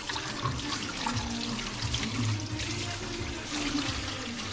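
Kitchen tap running into a stainless steel sink, the stream splashing over a gutted carp being rinsed by hand.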